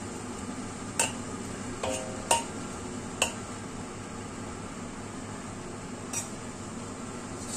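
Metal spatula clinking against a wok while stirring winter melon cubes in oil, with sharp clinks about one, two and three seconds in, a short ringing clink near two seconds, and one more about six seconds in, over a steady sizzle of the frying oil.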